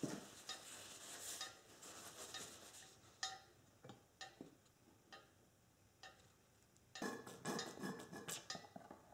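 Faint scattered clicks and light rustling from a hydraulic fluid bottle and a paper towel being handled at the fill port of a shop crane's bottle jack as it is topped up. A busier stretch of rustling and clicking comes near the end.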